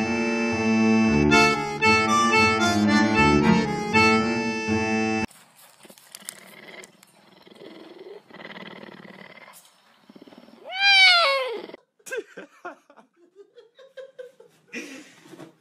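Background music with held notes, cutting off abruptly about five seconds in; later a cougar gives one loud call about a second long that rises briefly and then falls in pitch.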